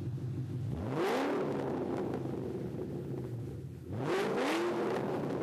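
Car engine idling, revved twice about three seconds apart, each rev climbing quickly and falling back to idle.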